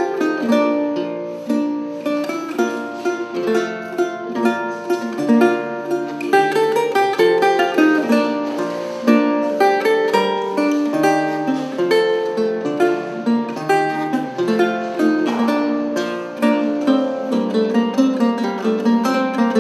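Solo lute played by plucking, in a continuous flow of quick notes with several strings sounding together.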